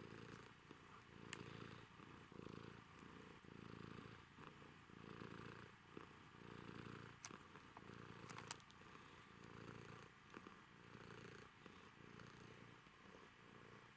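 Domestic cat purring softly while being stroked: a low, even rumble that swells and fades with each breath, with a few faint clicks.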